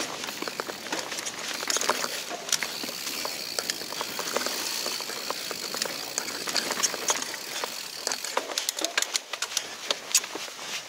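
Mountain bike rolling down a dirt singletrack: steady tyre noise over the dirt with frequent rattles and clicks from the bike, thicker near the end.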